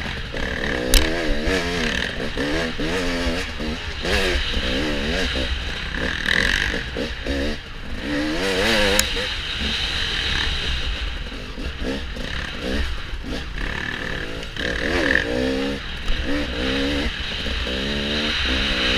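Dirt bike engine revving up and down over and over as the throttle is worked, under heavy wind buffeting on the microphone. There are two sharp knocks, about a second in and about nine seconds in.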